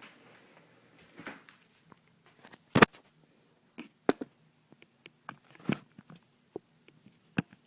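A scattering of short, sharp clicks and knocks at irregular intervals over a faint low hum, the loudest about three seconds in.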